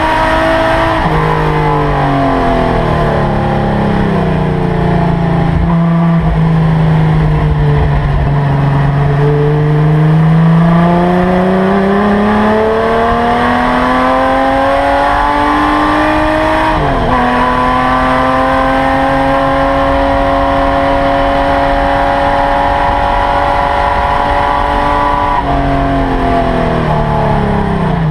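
Holden LC Torana GTR XU1's straight-six engine under racing load, heard from inside the cabin. Revs fall away to a low point, climb steadily for several seconds, drop sharply at a gear change about 17 seconds in, then hold nearly level before falling away again near the end.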